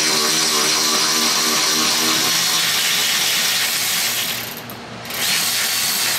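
Power ratchet running, backing out a bolt on the drive shaft's carrier bearing: one long run of about four seconds, a short break, then a second run of about a second near the end.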